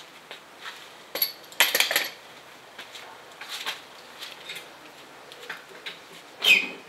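Hand tools clinking and clattering: a metal torque wrench and socket being set down on brick paving, with a cluster of sharp clinks about a second and a half in and a few lighter knocks after. Near the end comes a brief, louder high sound that falls in pitch.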